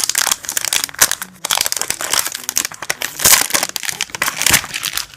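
Plastic and cardboard packaging crinkling and rustling as the speed cube is unpacked by hand, with many sharp crackles.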